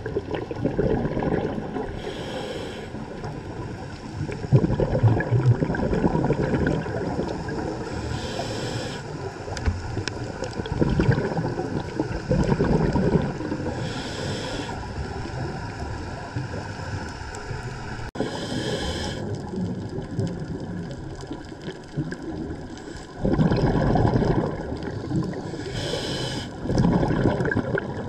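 A scuba diver's regulator breathing, recorded underwater: a short inhalation hiss about every six seconds, each followed by a longer burst of exhaled bubbles gurgling.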